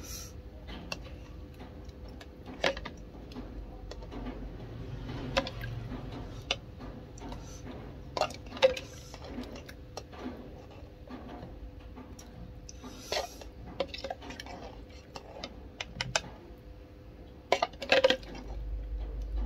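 Metal spoon clinking and scraping against a ceramic soup bowl and a glass jar, in scattered sharp clinks a few seconds apart.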